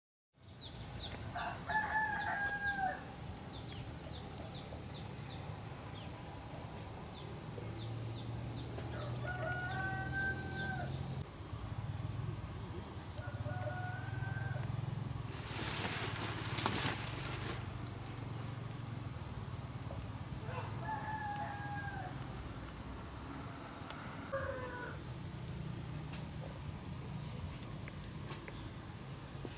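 Roosters crowing about five times, spaced out, over a steady high-pitched drone of insects. A brief burst of noise comes about halfway.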